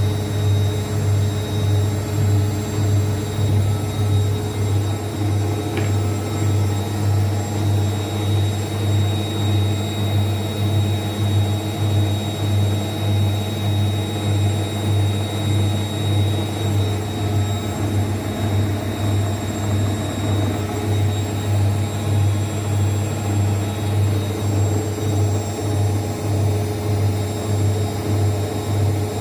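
Zanussi ZWSE680V front-loading washing machine running, a steady low mechanical hum that swells and fades in a regular pulse.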